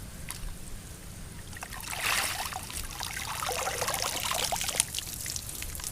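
Water running and dripping off a cast net as it is hauled out of the water, a splashy trickle that swells about two seconds in and tails off near the end.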